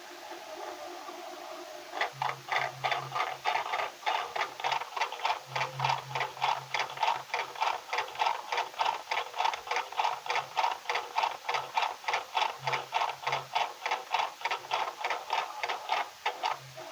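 A keypad mobile phone knocking against the inside of a turning washing machine drum, recorded by the phone itself. After a stretch of motor hum, regular knocks start about two seconds in, about three to four a second, and stop just before the end.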